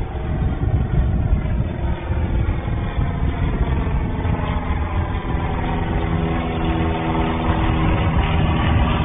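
Single-engine propeller airplane climbing out just after takeoff: a steady engine drone over a low rumble, its tones growing clearer from about three seconds in.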